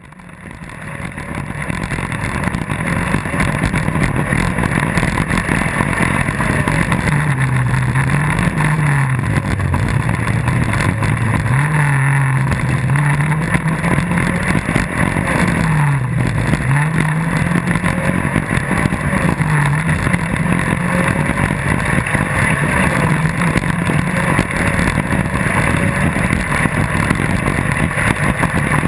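Off Roader rally buggy's engine heard on board under hard driving, its pitch falling and climbing again several times as the driver shifts and lifts off the throttle, over a steady rush of wind and gravel noise. The sound fades in over the first second or two.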